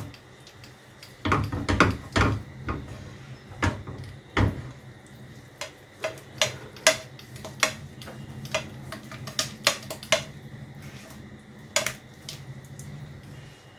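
A spatula clacking and scraping against a nonstick frying pan while a thick white sauce is stirred: irregular sharp clicks and knocks, some with a short ring. A low steady hum runs underneath from about five seconds in.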